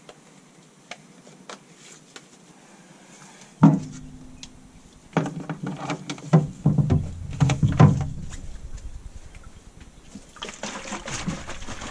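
Plastic cleaning-solution bottle and a carpet cleaner's plastic water tank handled at a utility sink. A few small clicks, then a sharp knock about three and a half seconds in, followed by a run of knocks and clatter with water sloshing, and a short hiss near the end.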